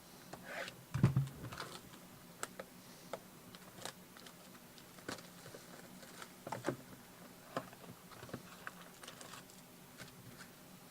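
Scattered light clicks and taps from handling trading-card packs and packaging on a table, with one dull thump about a second in.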